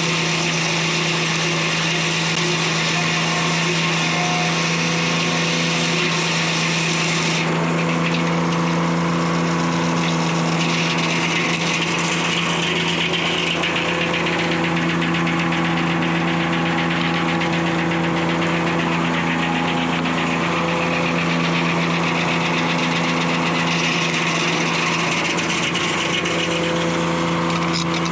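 Detroit Diesel 3-71 two-stroke diesel power unit running steadily, driving a 52-inch circular sawmill blade. The high hiss over the engine drops away about seven seconds in.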